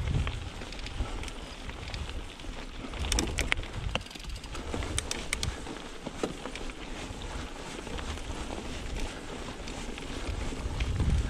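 Mountain bike rolling down a dirt trail: a steady rumble of wind buffeting the chest-mounted microphone and tyres over the ground, with a few sharp clicks and rattles from the bike about three and five seconds in.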